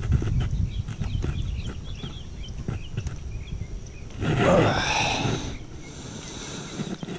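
A bass splashing and thrashing at the water's surface as it is lifted into the boat. The splashing is a loud rushing burst about four seconds in, over a low steady rumble with a few small clicks.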